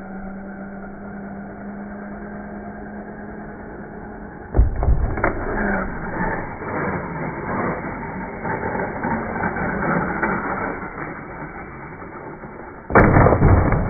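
Slowed-down, low-pitched sound of a radio-controlled truck jumping: a steady motor hum, then a sudden loud thud about four and a half seconds in as it strikes the ramp, followed by rough rattling and scraping noise. A second loud crash comes near the end as it lands.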